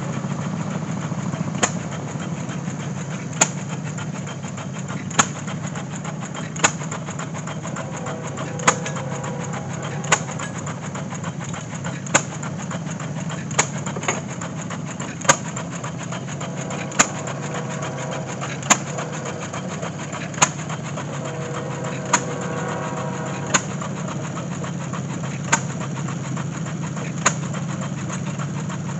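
Small antique flywheel gas engine belt-driving a model pump jack, firing with a single sharp bang about every second and a half to two seconds and coasting in between, in the hit-and-miss manner. A steady low drone runs underneath.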